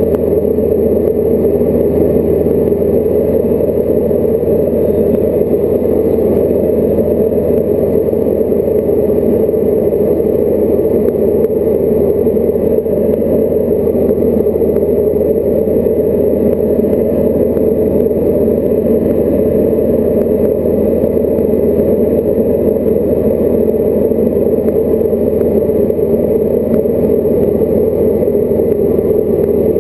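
Diamond DA40 light aircraft's piston engine and propeller running steadily in flight, a loud, even drone heard from inside the cockpit.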